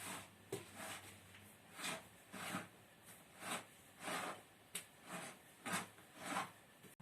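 A digging tool scraping into sandy soil in repeated strokes, about nine of them, roughly one every two-thirds of a second, with a couple of sharp clicks among them.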